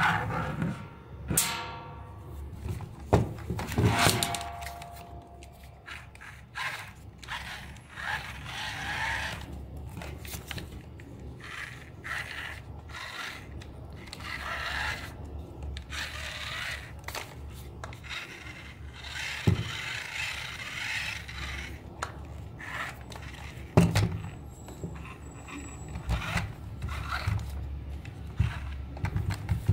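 Plastic scraping and rubbing as a toy remote-control tractor is handled and turned over, with scattered clicks and a few sharp knocks of its plastic body and wheels.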